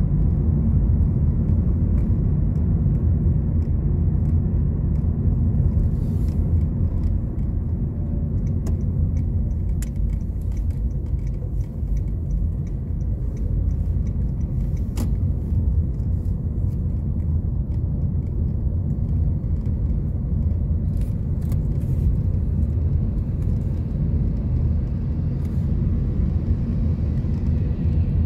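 Steady low rumble of a car driving, engine and tyre road noise heard from inside the cabin.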